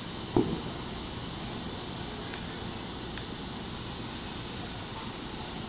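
Steady outdoor background rumble and hiss, with a short low thud about half a second in and two faint sharp clicks a little under a second apart near the middle.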